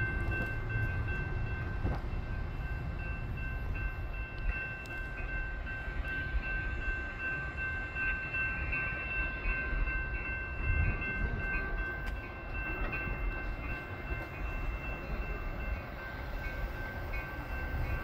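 Distant Metra commuter train approaching, a low steady rumble. Steady high-pitched tones sound over it throughout.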